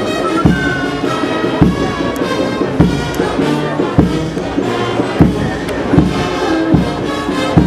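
Brass band music with a steady beat, held horn notes over a regular pulse.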